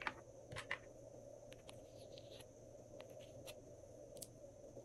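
Small sharp clicks and light scraping from a shell-shaped plastic case being handled and its contents scraped out with a small spatula. Three clicks come in the first second, then scattered faint ticks and a soft scrape, and one more click near the end.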